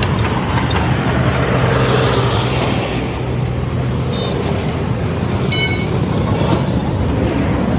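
Steady road traffic noise with vehicles running close by and a low engine hum in the first few seconds. Two short, high horn toots sound in the second half.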